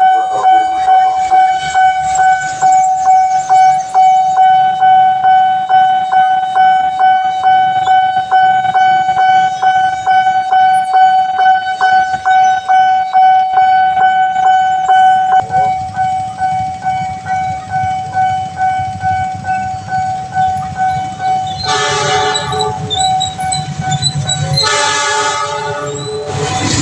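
Railway level-crossing warning alarm ringing steadily, pulsing about twice a second. About halfway through a train's low rumble comes in, and near the end the train sounds its horn twice as it passes the crossing.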